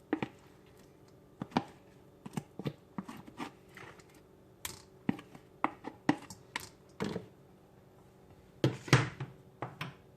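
A utensil scraping and knocking as leftover refried beans are spooned out of their container into a mixing bowl: irregular clicks and knocks with short scrapes, and a louder cluster of knocks near the end.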